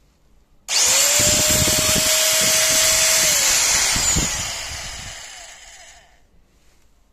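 A Bosch GSC 75-16 electric metal shear is switched on and run free without cutting. Its motor and blade drive start suddenly with a steady high whine and run for about two and a half seconds. It is then switched off and winds down, falling in pitch and fading over a few seconds.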